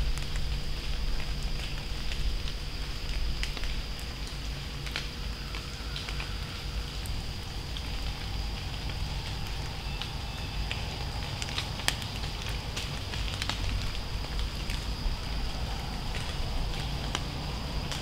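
Acorns dropping from oaks and pattering onto dry leaf litter, a scattered run of sharp ticks that sounds like light rain. A low steady rumble and a thin steady high tone lie underneath.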